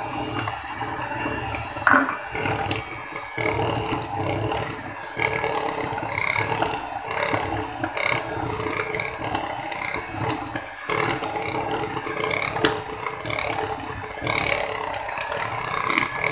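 Electric hand mixer running steadily, its beaters whirring through thick cake batter in a plastic bowl, with irregular clicks and knocks throughout, the loudest about two seconds in.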